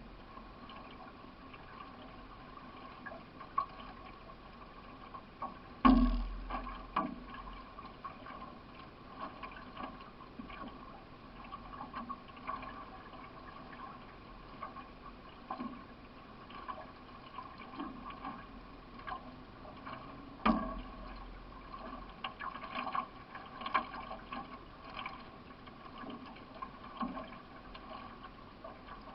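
Paddling aboard a solo racing canoe: the paddle dipping and pulling through the water with small splashes and gurgles, and light irregular clicks. Two sharp, louder knocks come about six seconds in and again about twenty seconds in.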